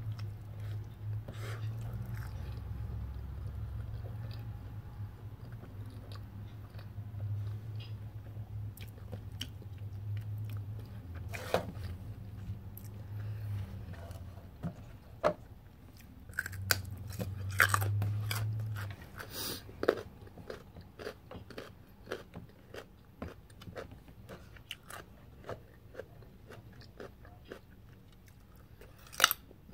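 Close-miked chewing and biting of toasted multigrain bread topped with avocado and egg, with crunches and many short sharp mouth clicks scattered through, the loudest near the middle and just before the end.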